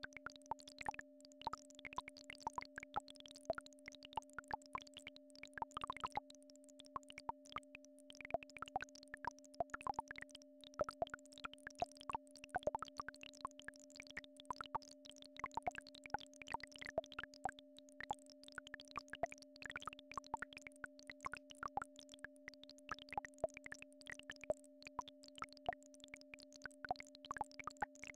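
Two steady electronic frequency tones, one low and one higher, held without change, as used in Rife/solfeggio entrainment audio. Over them, many short blips sound at irregular moments, some high and some low.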